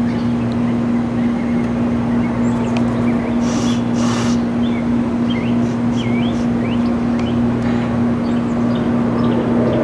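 Small birds chirping over a steady low hum, with two short hissy bursts about three and a half and four seconds in.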